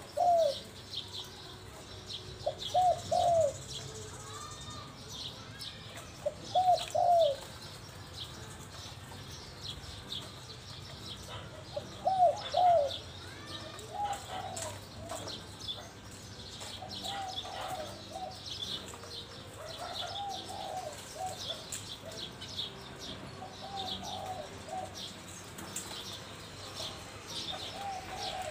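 Spotted dove cooing in short low phrases. The loudest phrases come near the start and again at about 3, 7 and 12 seconds, and softer cooing repeats through the rest. Small birds chirp high in the background.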